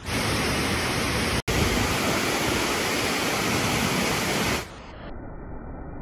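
Rushing water of a waterfall: a loud, steady hiss that cuts out for an instant about a second and a half in, and gives way near the end to a quieter, duller noise.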